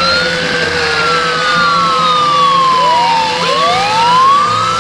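Electronic wailing fire-truck siren from Huina RC toy fire trucks: slow rising and falling sweeps, two sirens out of step overlapping, over a steady lower tone.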